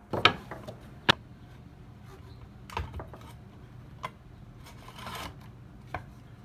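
Scattered clicks and knocks of handling: wooden offcuts and the compact circular saw being picked up and set down, the saw not running. A sharp click stands out about a second in, over a faint low hum.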